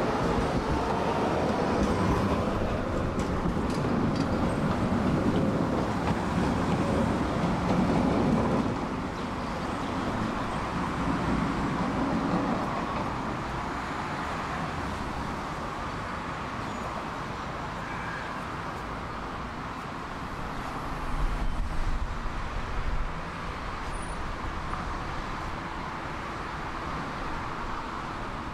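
A tram pulling away from the stop, its motor whine and wheel rumble loud for about eight seconds and then dropping away, leaving steady street traffic noise with a brief low rumble later on.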